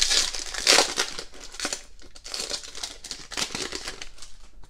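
Foil wrapper of a 2018 Donruss Optic basketball card pack crinkling in several bursts as it is torn open by hand and the cards are pulled out, growing quieter near the end.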